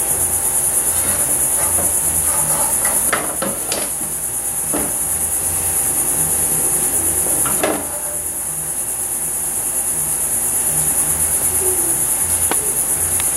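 Kitchen tongs knocking and scraping against a frying pan as the sauce is stirred, a few sharp knocks about three to four seconds in and again just before eight seconds in. Under them is a steady high-pitched hiss and a low pulsing hum.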